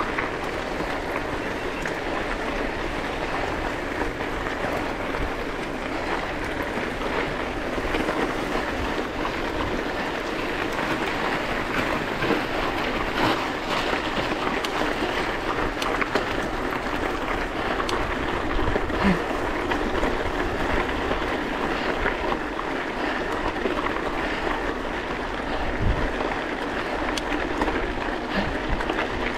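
Bicycle riding noise heard from a bike-mounted action camera: a steady rush of tyres rolling over the road surface and wind on the camera's microphone, dotted with frequent small clicks and rattles.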